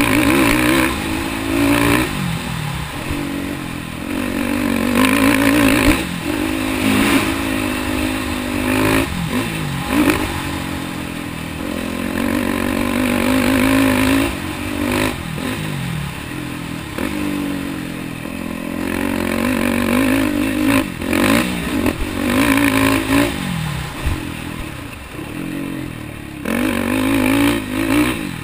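Yamaha sport quad's engine revving up and falling back again and again as the rider works the throttle round a dirt motocross track, with rattles and knocks as it goes over the bumps.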